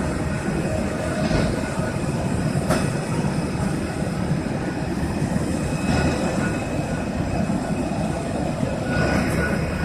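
Steady mechanical rumble of an Airbus A320 during pushback, with a faint high whine over it and a couple of brief clicks in the first three seconds.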